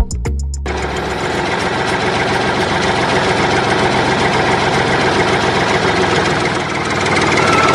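Small battery-powered DC motor of a DIY model drilling rig running steadily, a dense buzzing whir with fast fine pulsing.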